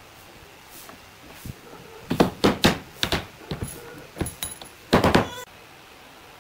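Hammer striking a steel chisel against a wooden frame: a quick run of sharp knocks about two seconds in, a few lighter taps, then a tight cluster of knocks with a faint metallic ring about five seconds in.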